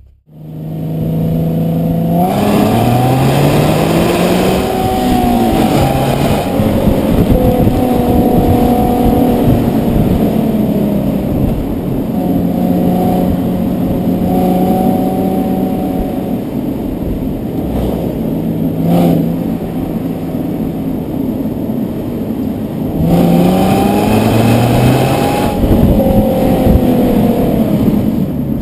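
Nissan 370Z's 3.7-litre V6 engine pulling hard, its pitch climbing and then dropping back at each gear change. It holds a steady pitch through the middle, then climbs and shifts again near the end. There is one sharp click about two-thirds of the way through.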